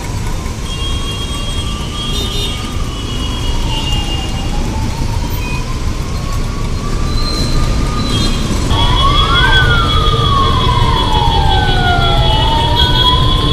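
Ambulance sirens wailing in slow rising and falling sweeps over the low rumble of heavy traffic; a second siren with a quicker sweep joins about nine seconds in.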